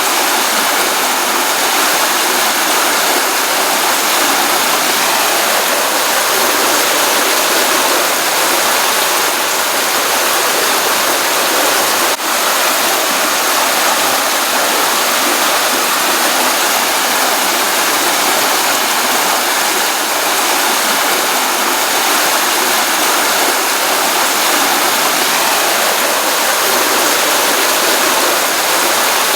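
Water of a small stream running steadily after rain, a continuous even rush of splashing with no pauses. There is one brief click about halfway through.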